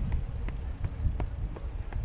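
A bicycle rolling over pavement with a low wind and road rumble on the bike-mounted microphone, and a few irregular clicks and rattles from the bike as it goes over bumps.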